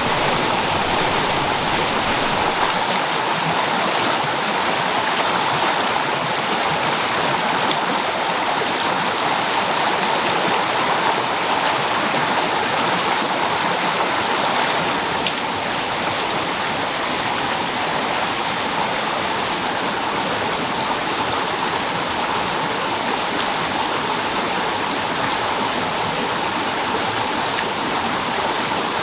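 Rocky stream rushing over boulders: a steady, full rush of water, dropping slightly about halfway through.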